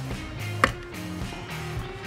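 Background music, with one sharp click about half a second in as a plastic wheel rim is pressed into a small rubber model-truck tyre.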